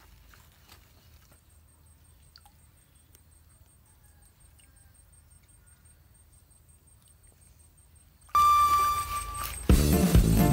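Very quiet pond-side ambience with a few faint clicks for about eight seconds, then a sudden bright chime, and background music starts near the end.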